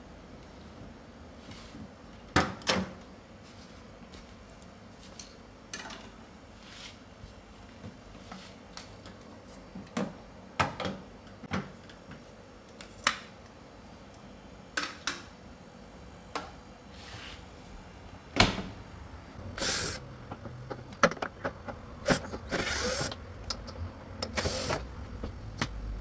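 Scattered clicks, knocks and short scrapes of hand tools and plastic panel parts as a front-load washing machine is taken apart. The sounds are denser and noisier near the end.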